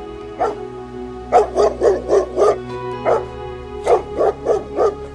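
Doberman barking in quick runs: a single bark, then five in a row, another single one, and four more near the end, over steady background music.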